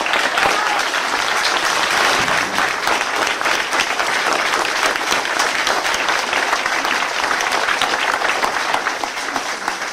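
Large audience applauding: dense clapping that starts suddenly and holds steady, easing slightly near the end.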